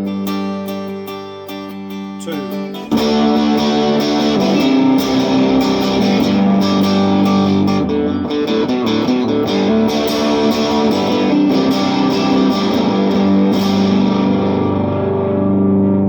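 Fender Telecaster through a Vox AC15 amp, on both pickups, played clean at first; about three seconds in a power booster pedal kicks in and the guitar becomes suddenly much louder and brighter, with a slight drive, the booster turned up to full.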